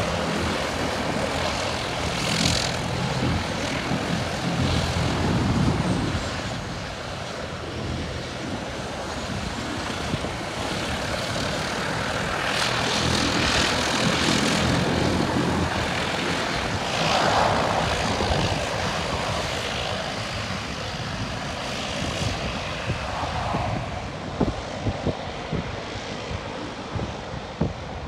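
Turboprop aircraft engines running on the ground, a steady drone and whine that swells louder twice in the middle.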